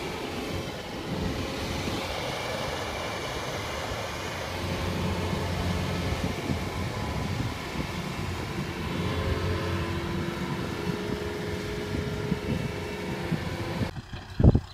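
Diesel engine of a Kubota tracked combine harvester running steadily as the machine moves. Near the end the sound drops off abruptly, followed by a single loud thump.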